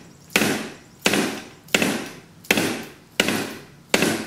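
Soft-face mallet striking a greased lead sinker on the muzzle of a rifle barrel, six even taps about one every 0.7 s. Each tap drives the soft lead slug into the bore so it compresses into the rifling, for slugging the bore to measure groove diameter.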